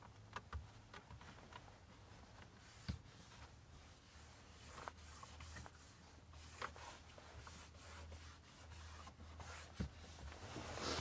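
Faint scattered taps, clicks and rubs of a hand on a car stereo's touchscreen and trim, a few sharper ticks among them, over a low steady hum. A breath swells up right at the end.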